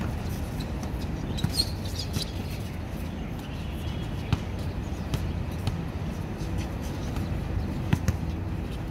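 Outdoor basketball game on a hard court: a few sharp thuds of the ball bouncing, the loudest about four seconds in and near the end, over a steady low rumble.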